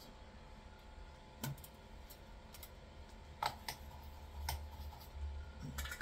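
A handful of light, scattered clicks and taps from handling small tools and wires at a soldering bench, over a low steady hum.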